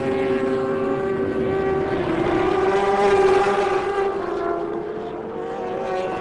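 Several racing superbike engines running at high revs as a tight pack of motorcycles passes, loudest about three seconds in. Near the end one engine note climbs as a bike accelerates.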